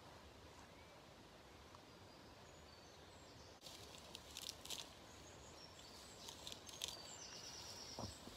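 Near silence: faint outdoor ambience. About halfway through come faint, scattered high crackles and clicks, and near the end a brief high trill.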